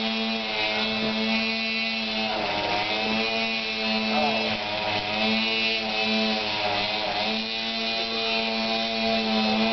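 A steady machine drone at one constant pitch, easing briefly about every two and a half seconds.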